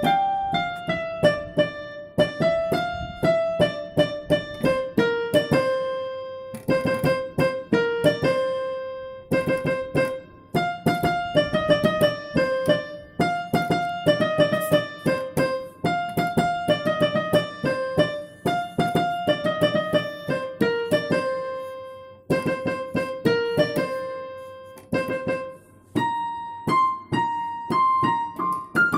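Background music: a melody played on piano, note by note in short repeating phrases.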